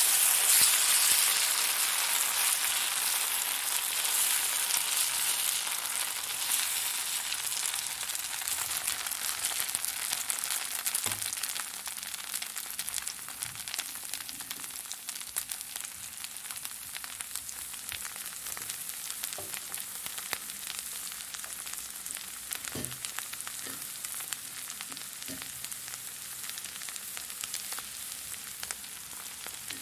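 Fire burning with a dense crackle and hiss, loudest at the start and easing off over the first ten seconds or so to a steadier, quieter crackle, with a few scattered pops.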